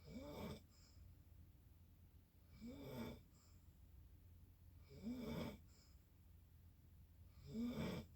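Snoring: four short snores at an even pace of about one every two and a half seconds, each with a pitch that rises and then falls.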